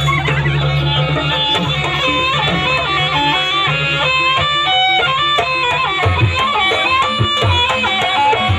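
Jaranan music played live: a reedy wind melody moving in stepped notes over hand drums, the drum strokes growing heavier about six seconds in.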